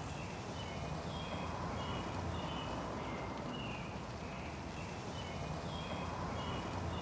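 Beef fat sizzling and flaring up over the charcoal as a steady hiss. Over it, a bird chirps short high notes again and again at a few different pitches.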